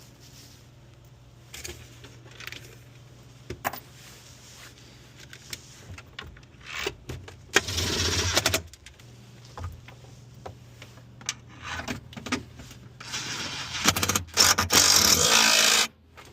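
Hand tools working on the hybrid battery's bolted connections: scattered metallic clicks and scrapes over a steady low hum, with two louder stretches of noise, about a second long near the middle and about three seconds long near the end.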